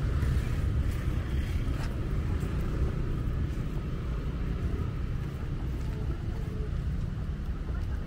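Outdoor street ambience dominated by a low, uneven rumble of wind buffeting the microphone, with faint traffic noise.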